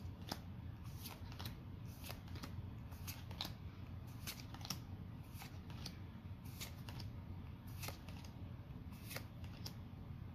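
Trading cards being flipped through one at a time, each card sliding off the stack with a faint swish or snap, irregularly about twice a second, over a low steady hum.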